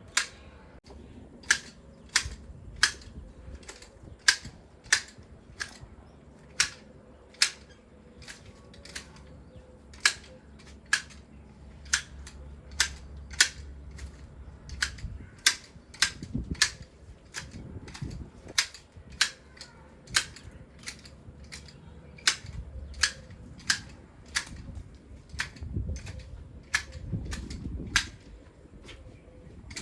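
Garden shears snipping the branches of ornamental shrubs being trimmed, a sharp snip about every half second to second.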